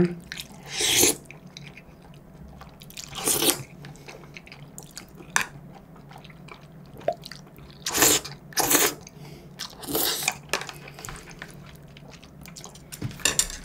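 Jjajangmyeon noodles being slurped and chewed: a string of short, wet slurps a second or two apart, with quieter chewing between them.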